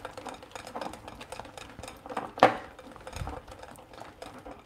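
Wire whisk beating a thick flour batter in a glass bowl: rapid, fairly faint clicking and scraping of the wires against the glass, with one louder knock about halfway through.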